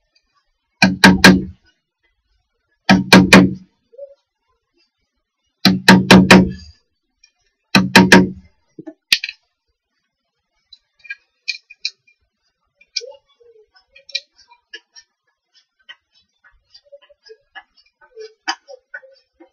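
Hammer blows driving a chisel into a wooden beam, in four quick groups of three or four strikes over the first eight seconds or so. After that come lighter clicks and scrapes as the chisel is worked by hand in the wood.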